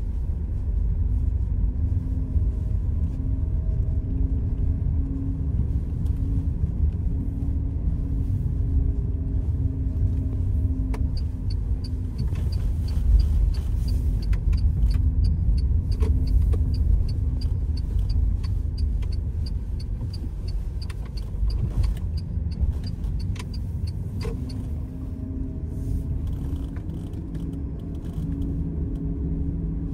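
Car driving slowly, heard from inside the cabin: a steady low engine and road rumble. A light, regular ticking runs from about eleven to twenty-four seconds in.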